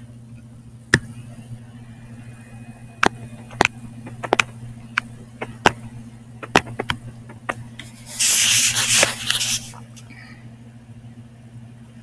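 A stylus clicks against a tablet screen during handwriting: a dozen or so sharp, irregular clicks, with about a second and a half of hiss about eight seconds in. A steady low hum runs underneath.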